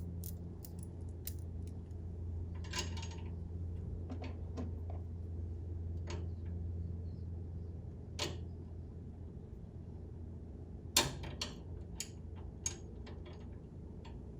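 Scattered light clicks and clinks of small metal hardware being handled and fitted by hand (a bolt, washers and spacers going onto a hood prop arm), with the sharpest click about 11 seconds in. A steady low hum runs underneath.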